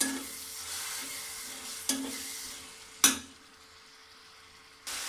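Onion-tomato masala frying in mustard oil in an aluminium pot, sizzling while a metal slotted spatula stirs and scrapes through it. The spatula knocks against the pot, once lightly about two seconds in and with a loud clank about three seconds in, after which only a fainter sizzle is left.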